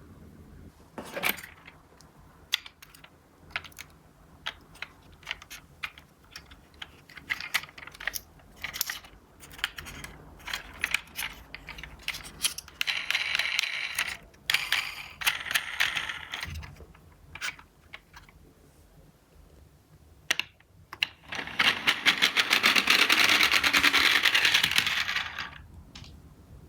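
Die-cast Tomica minicars clattering: scattered clicks and knocks as the small metal toy cars knock together and against hard surfaces. There are two stretches of fast, dense rattling, one around the middle and a louder one near the end.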